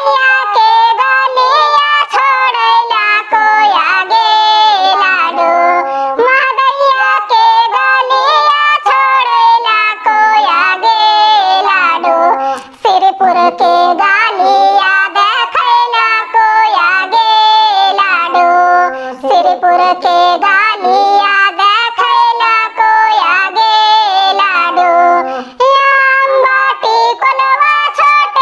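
A high, pitch-shifted cartoon voice singing a Bhojpuri bidai geet, the mournful song of a bride's farewell. The singing runs in long wavering lines, with brief pauses between phrases.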